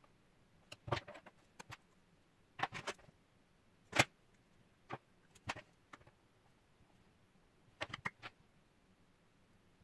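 Small plastic clicks and taps as makeup pencils and their caps are handled, uncapped and set down on a wooden desk and a digital kitchen scale, in short scattered bursts; the sharpest click comes about four seconds in.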